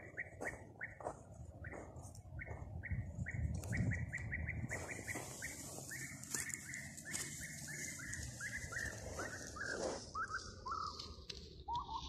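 European bee-eater calls: a fast run of short, repeated call notes, about three a second, that slide steadily lower in pitch over the second half, with the flapping of the tethered decoy bee-eater's wings.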